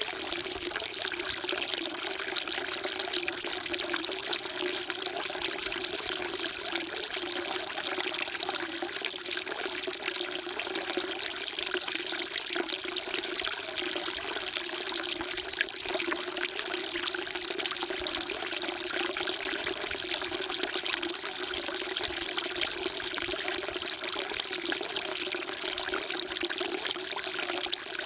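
Water pouring in a steady, unbroken stream from the spout of a stone temple water trough (sugwak) and splashing into the basin.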